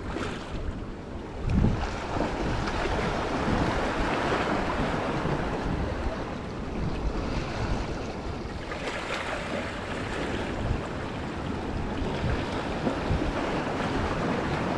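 Sea water washing against shoreline rocks, with wind buffeting the microphone and one low thump about a second and a half in.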